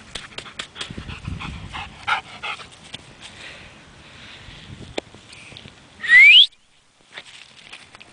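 A Rhodesian Ridgeback runs on dry grass, with soft footfall thuds and light clicks. About six seconds in comes a single short, loud whistle rising in pitch.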